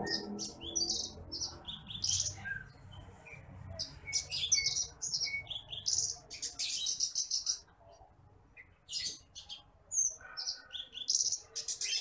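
Branjangan apung (titimplik), a small ground-dwelling songbird, singing high, thin twittering phrases of rapid chirps and short trills, with a brief pause about two-thirds of the way through.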